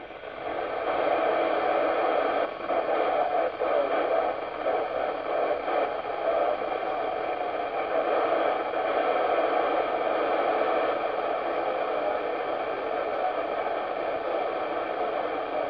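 Steady receiver hiss and static from a Yaesu FT-847 transceiver's speaker, tuned to the BY70-1 CubeSat's 436.2 MHz FM downlink, with no voice coming through.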